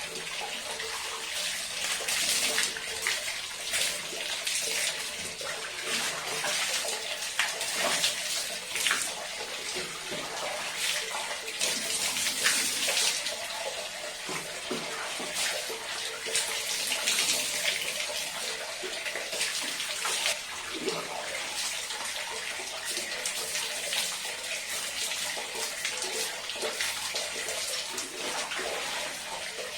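Water running and splashing as hair is washed and rinsed by hand, a steady flow of water with irregular splashes throughout.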